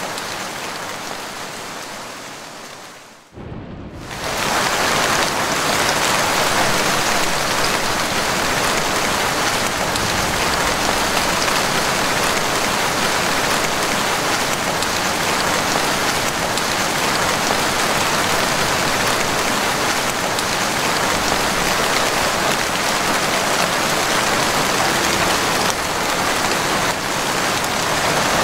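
Heavy rain falling steadily. About three seconds in it fades away briefly, then comes back louder and stays steady.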